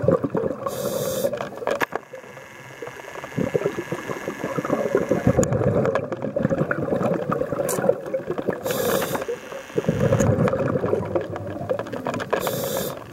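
Scuba diver's regulator breathing underwater: a short hissing inhalation three times, with bubbly bursts of exhaled air, the longest just after the second inhalation.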